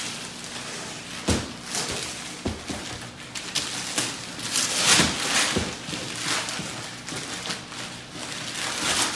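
Paper and tissue paper rustling and crinkling as a gift box is handled and unwrapped, with a few dull knocks of the boxes on a table.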